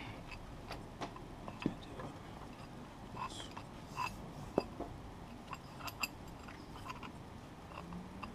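Irregular metal clicks and clinks of a breaker bar and socket on a motorcycle's front brake caliper bolts as they are worked loose, with a few sharper knocks about a second and a half, four and a half and six seconds in.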